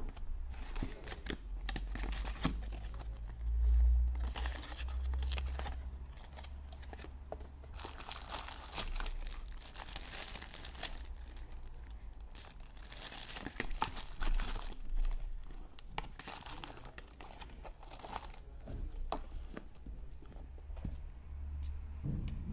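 Hands unpacking a cardboard phone box and its plastic packaging: irregular rustling, scraping and crinkling of cardboard and plastic, with a sharp knock right at the start and low handling bumps a few seconds in.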